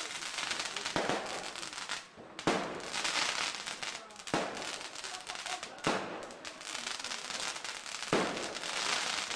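Consumer ground firework going off: a steady hissing crackle with five sharp pops spaced about one and a half to two seconds apart.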